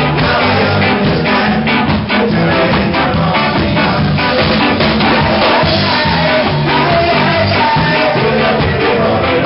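A live ska band playing loudly: electric guitar, bass guitar and drum kit keeping a steady beat, with a man singing lead into the microphone.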